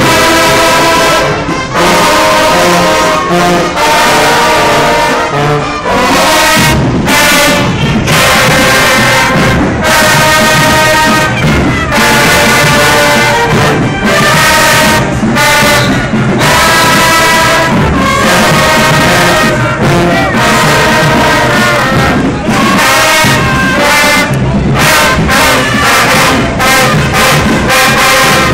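Marching band brass section of trumpets, trombones and sousaphones playing loud. The sound fills out with a heavier low end about six seconds in.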